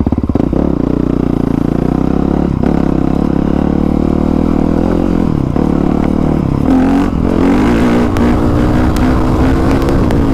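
Honda CRF450R's single-cylinder four-stroke engine running under the rider, steady at first, then a little louder with its pitch rising and falling with the throttle from about seven seconds in.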